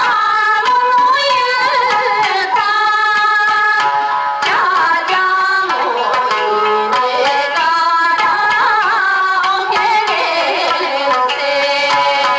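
Background music: a melody over light percussion, with a voice or voice-like instrument weaving through it.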